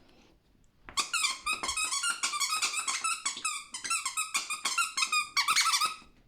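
A dog's squeaky toy squeaking rapidly over and over as a Chinese Crested dog chews on it, starting about a second in and stopping shortly before the end.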